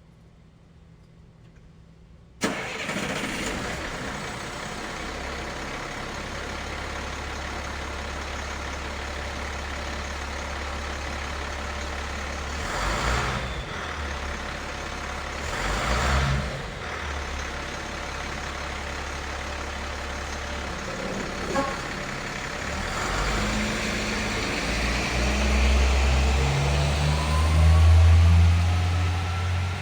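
Truck engine starting about two seconds in, then idling with a steady low hum, broken twice by short louder surges. Near the end the engine picks up and accelerates, its pitch rising as it pulls away.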